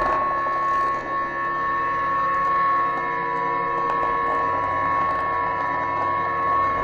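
Background music: a sustained drone of several steady held tones over a grainy, rattling texture.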